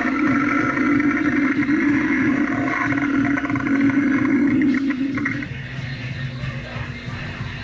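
Possessed-Regan animatronic prop playing a low, rough demonic growl from its speaker as its head turns. The growl stops about five and a half seconds in.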